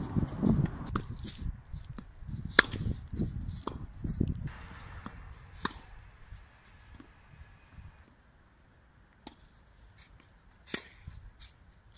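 Tennis ball strikes: sharp pops every second or two as the ball comes off the racket strings, the loudest a little over two seconds in, growing sparser in the second half. A low rumble sits under the first few seconds.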